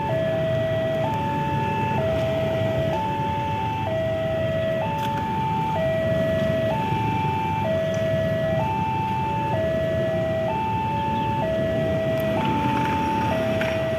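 Indonesian railway level-crossing warning alarm sounding: an electronic two-tone signal alternating between a higher and a lower note, each held just under a second, warning that a train is coming and the barriers are down. A steady low rumble of road traffic runs underneath.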